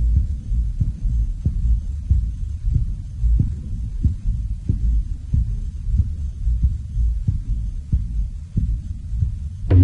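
Soundtrack of a low, heartbeat-like throbbing pulse, about one and a half beats a second, over a steady deep hum. Near the end a sharp hit comes in.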